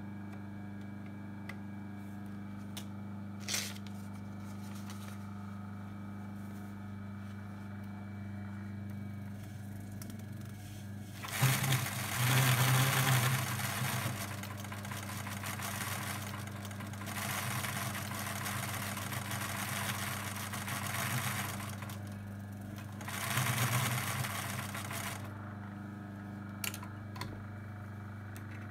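Vintage Dürkopp Adler 189A cast-iron zig-zag sewing machine running and stitching in three stretches from about eleven seconds in: the first is loudest, the second longer and quieter, and the third is short. There is a steady low hum throughout, and a few light clicks come before the sewing and again near the end.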